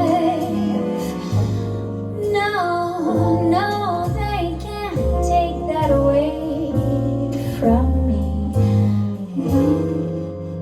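Recorded music playing through Dynaudio Heritage Special hi-fi loudspeakers: the closing bars of a slow female-sung ballad. The voice gives way to guitar and the music fades toward the end.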